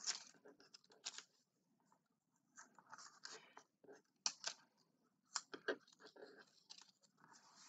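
Faint, intermittent rustling and scraping of thin cardstock strips being pulled through and woven over and under one another, with a few light ticks of paper against paper.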